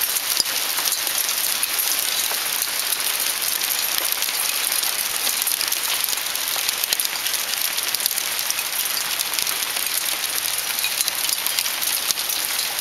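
Hail coming down steadily: a dense, even hiss of small ice pellets hitting the ground and patio, with many little ticks throughout.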